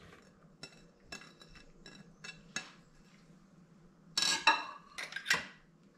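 Kitchenware clinking: a glass dish tapped against a food processor bowl as flaked trout is tipped in, a run of light clinks, then two louder clinks about four and five seconds in as metal measuring cups are picked up.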